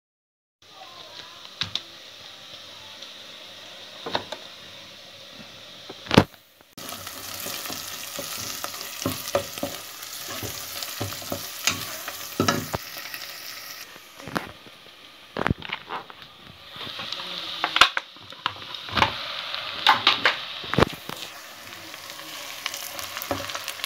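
Food sizzling in hot oil in a pan while a wooden spatula stirs it, knocking and scraping against the pan many times, with one loud knock a little past six seconds in. The sizzling gets louder for the last several seconds.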